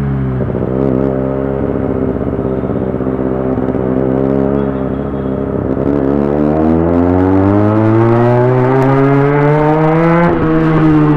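Motorcycle with a loud exhaust. The revs drop and it runs low and choppy for several seconds, then it accelerates with rising pitch, with an upshift about ten seconds in before it pulls again.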